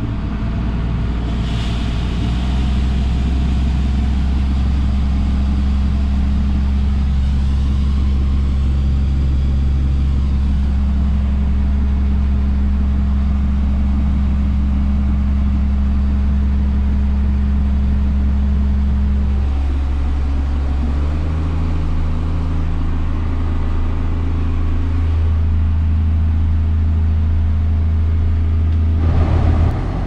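Diesel engine of a John Deere 7710 tractor running steadily, heard from inside its cab, together with a combine unloading grain through its auger into the grain cart. The engine note shifts to a different pitch about two-thirds of the way through.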